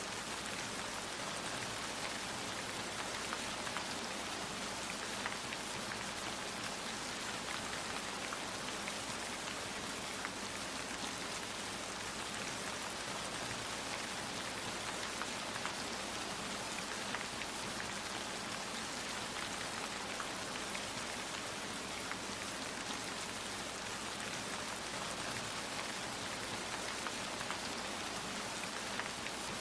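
Steady rain falling, an even hiss with many small drop ticks; no thunder in this stretch.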